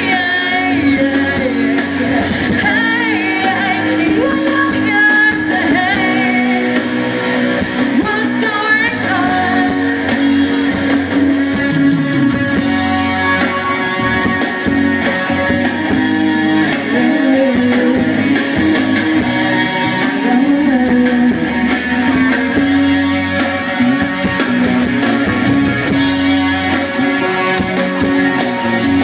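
Live rock band music: guitars and drum kit with a singing voice.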